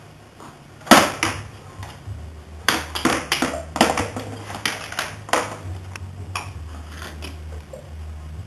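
Hard plastic toys knocking and clattering against each other and a plastic storage box: one loud knock about a second in, then a run of sharp clacks over the next few seconds.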